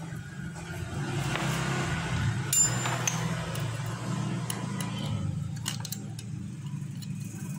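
Metal clicks and clinks of hand tools working loose the bolts of a scooter's starter motor, sharpest about two and a half seconds in and again near six seconds, over a steady low engine hum.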